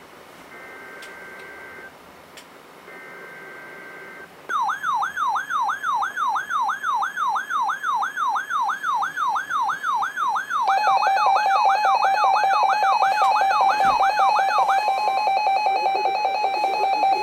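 Emergency Alert System weekly test tones from a weather radio. First come two short screeching bursts of the SAME digital header, about a second apart. Then an alarm tone sweeps up and down about three times a second, and about six seconds later a louder steady buzzing tone joins it and carries on alone after the sweep stops.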